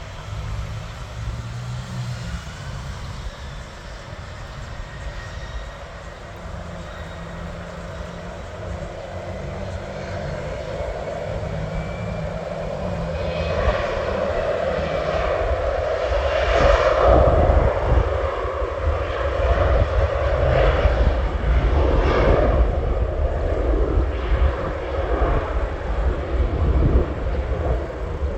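Jet aircraft taking off: its engine noise, with a faint high whine at first, grows steadily louder and is loudest from about two thirds of the way in, over a deep rumble.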